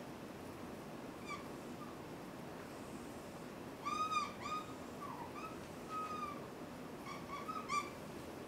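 Dry-erase marker squeaking against a whiteboard as lines are drawn: several short squeaks, the loudest about four seconds in, over a steady room hiss.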